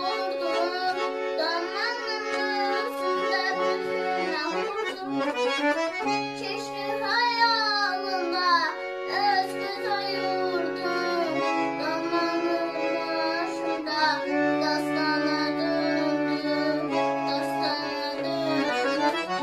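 A young boy singing an Azerbaijani təsnif in an ornamented, wavering melodic line, accompanied by a button accordion holding sustained chords and bass notes.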